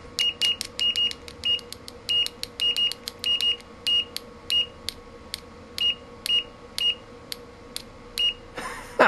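Fluke 101 multimeter's continuity beeper giving short, irregular beeps at one pitch, each starting with a click, as the test leads make and break contact. The beeps come about two a second at first and thin out in the second half.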